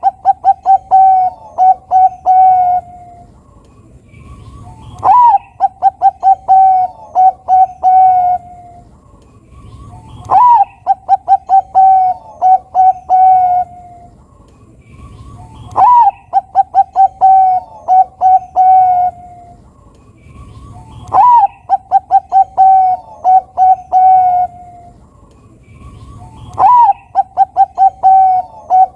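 Bangkok-type zebra dove (perkutut) singing its cooing song. Each phrase opens with a loud rising-and-falling note, then runs into a string of quick short coos. The phrase comes six times, about every five seconds.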